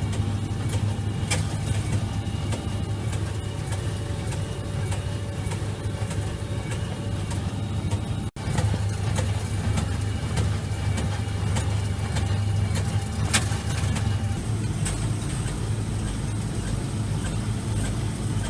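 Fendt 720 tractor engine running steadily while pulling a Massey Ferguson baler, with scattered sharp clacks from the baler's working parts. The sound drops out for an instant about eight seconds in.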